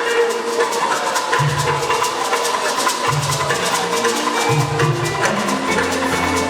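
Music with a steady percussion beat of sharp clicks and drums; a bass line comes in about a second and a half in.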